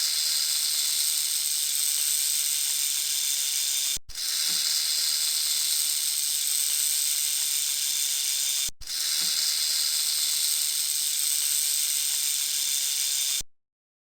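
A snake's steady, high hiss, repeated three times in stretches of about four and a half seconds, with brief breaks between them.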